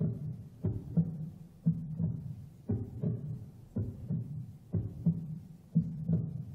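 Heartbeat-like pulse in a music score: a low double thump, lub-dub, repeating about once a second.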